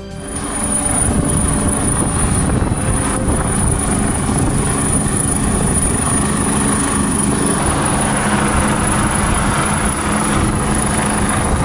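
Helicopter hovering low overhead: steady, loud rotor and engine noise with a thin high whine above it.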